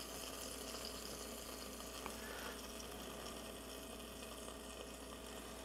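Faint, steady sizzling of a hot burger patty in a pulled-out air-fryer basket, with a low hum under it and one light tick about two seconds in.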